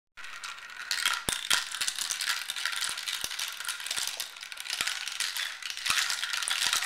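Marbles rattling and clattering in a plastic toy marble run, swirling in the funnel and dropping down the tubes, a steady rattle broken by several sharp clicks.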